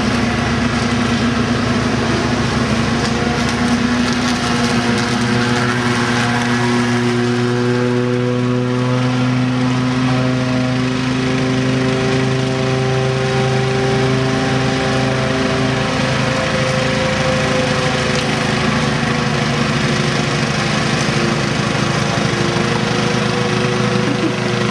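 Ride-on lawn tractor's engine running steadily as it mows, its pitch wandering slightly as it moves about the yard. An electric push mower runs too.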